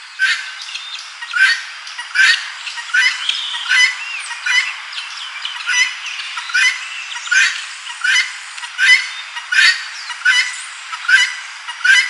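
Helmeted guinea fowl calling, the same squawking call repeated at an even pace a little faster than once a second.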